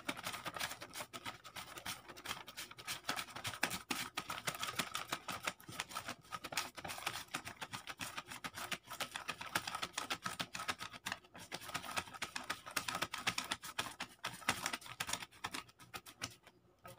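A wad of paper banknotes waved as a hand fan, flapping in a fast, steady papery flutter. It breaks off briefly about two-thirds through and stops shortly before the end.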